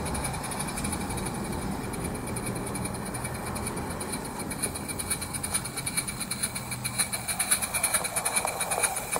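Live-steam garden-railway model of the Lynton & Barnstaple tank locomotive Yeo running toward the listener, with a rapid, even ticking beat that grows louder as it draws near.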